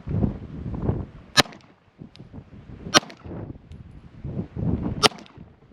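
Three single pistol shots from a compensated Sig Sauer P320, spaced about a second and a half to two seconds apart, with wind buffeting the microphone between them.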